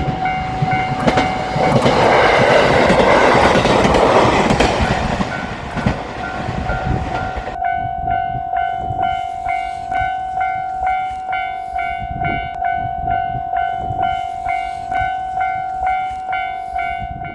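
A Japanese level-crossing alarm rings its electronic bell in a steady pulse, about two strokes a second. For a few seconds near the start, a JR Shikoku 7200 series electric train passes over the crossing, its wheels rumbling and clacking on the rails, then fades. The bell keeps ringing after the train has gone.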